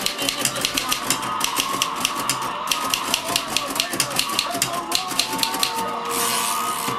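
Typing on an old Royal portable typewriter: a quick run of sharp keystroke clicks, the type bars striking about six to eight times a second. A short rushing noise about six seconds in briefly covers the clicks.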